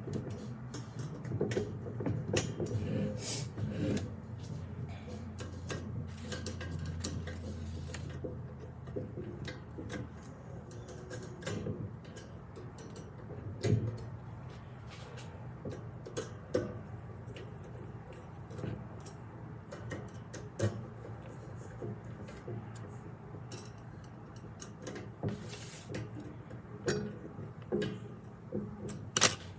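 Screws being tightened into a metal can rack with a hand screwdriver, with scattered clicks, clinks and light knocks of the metal frame being handled.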